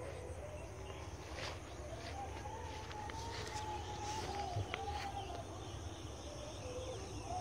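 A faint, long wavering call that rises and falls slowly in pitch and runs on for seconds with hardly a break, over a steady high insect-like buzz.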